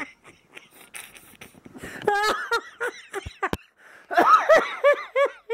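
A person laughing in two runs of short, high-pitched, bouncing syllables, with two sharp knocks in the gap between them.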